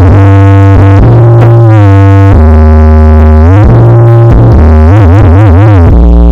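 Very loud synthesizer music with a heavy deep bass, played through a giant carnival sound system. Long held synth notes glide up and down in pitch, with a wavering, wobbling passage about five seconds in.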